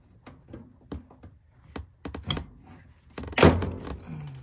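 Scattered small clicks and taps of hands and tools working on a furnace's gas valve wiring, with one louder knock about three and a half seconds in.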